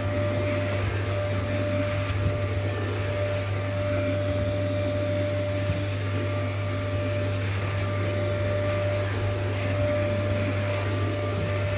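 Vacuum cleaner running steadily: a low motor hum with a steady whine over the rush of air.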